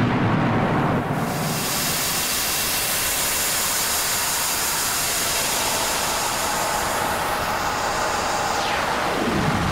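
Loud, steady rushing hiss. It starts heavy in the lows and fills out in the highs about a second in; near the end its upper edge sweeps steeply downward.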